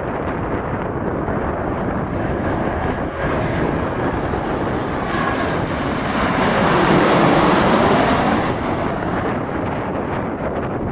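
Military aircraft passing close by. Its engine noise swells to a peak about seven seconds in, with a high whine falling in pitch, then fades.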